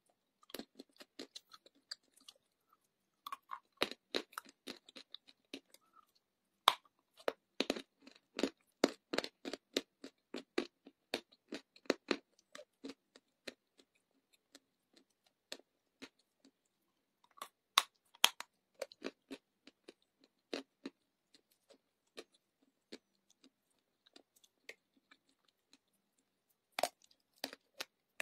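Dry chunks of clay bitten and chewed, crunching crisply in clusters of rapid crunches with short pauses between mouthfuls.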